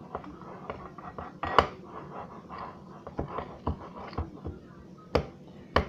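A spoon knocking and scraping against a bowl while mixing dough: irregular sharp clicks, about two a second, with louder knocks about a second and a half in and near the end.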